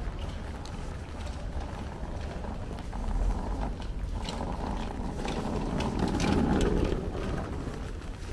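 Street ambience with traffic going by, louder for a couple of seconds about five seconds in as a vehicle passes, with a steady low rumble underneath.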